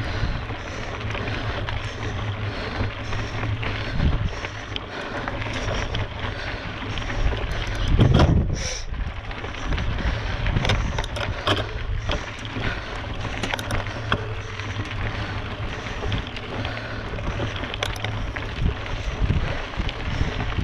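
Wind buffeting a GoPro action camera's microphone: a continuous rumbling rush, with one louder gust about eight seconds in.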